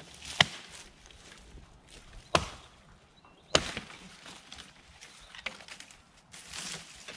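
Tasmanian pattern axe chopping into green sycamore (a maple): three sharp blows, the first and loudest about half a second in, the others about two and a half and three and a half seconds in, with a softer rustle of brush near the end.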